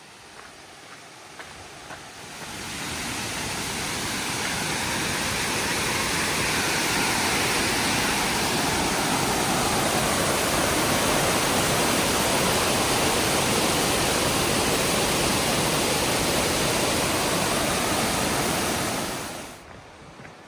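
A large waterfall rushing in a steady, even roar of falling water, which comes in about two seconds in and cuts off sharply near the end.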